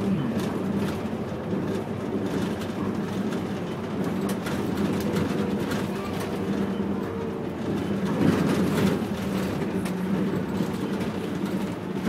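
City bus driving along a road, heard from inside the passenger area: a steady engine drone with frequent small rattles and knocks from the body, swelling slightly about eight seconds in.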